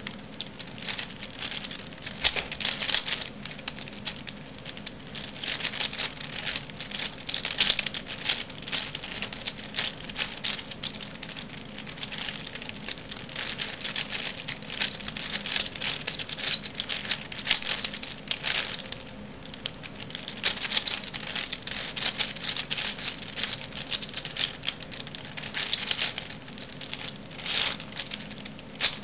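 Black V-Cube 5 (5x5x5 puzzle cube) being turned by hand at a slow, steady pace: a continuous run of plastic clicks and clacks as its layers turn, coming in uneven clusters.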